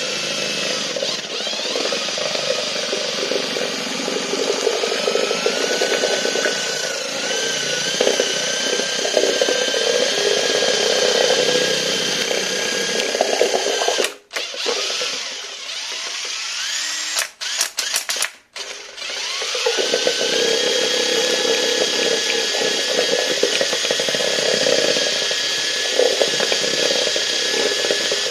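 Cordless drill spinning a paddle mixer through a cup of epoxy resin, a steady motor whine. About halfway through it stops briefly a few times and runs slower, then comes back up to full speed.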